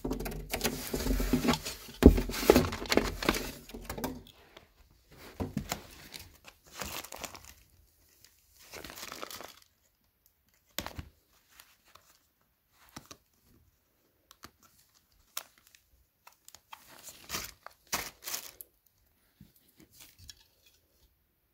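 Plastic packaging bags around new vacuum parts being handled and unwrapped, rustling heavily for the first few seconds. After that come scattered short rustles and light clicks as the parts are picked up and set down, with quiet gaps in between.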